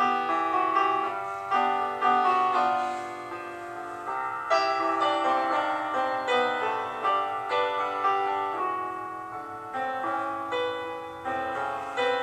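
Background piano music: a flowing melody of struck notes, each ringing out and fading as the next begins.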